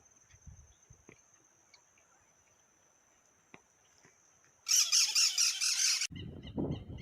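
Wild bird calling: about five seconds in, a loud harsh squawk lasting over a second, then a quick run of repeated calls of several notes a second over a low rumble. Before that there is only a faint steady high-pitched tone.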